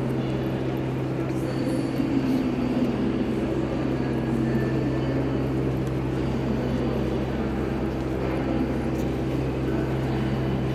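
Steady low hum of a large railway station concourse, with a faint wash of indistinct background noise over it.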